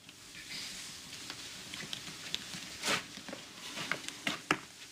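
Soft footsteps as a man crosses a small room to a door, with a few light clicks near the end as he reaches the door.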